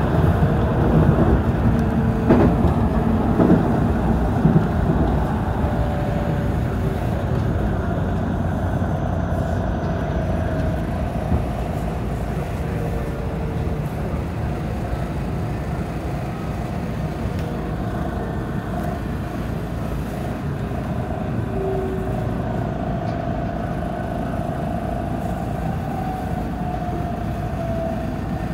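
JR Central 313 series electric multiple unit running, heard from inside the leading car: a steady rumble of wheels on rail, with a few sharp clicks over points a couple of seconds in. A thin motor whine runs over it and lowers in pitch near the end as the train slows between station platforms.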